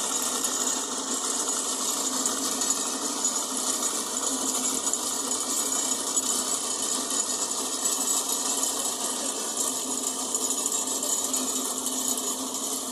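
Construction machinery running steadily with a dense, unbroken mechanical rattle and buzz that holds an even level throughout.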